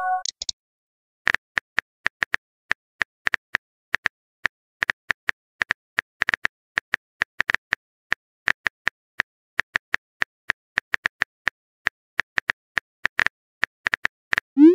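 Phone on-screen keyboard typing clicks: a quick, irregular run of light ticks, several a second, as a text message is typed out letter by letter.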